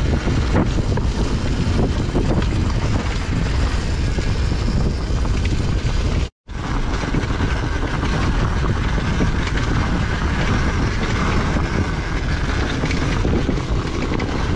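Dirt bike engine running while riding over a rough track, heavily mixed with wind buffeting on the bike-mounted microphone. The sound drops out completely for a moment about six seconds in.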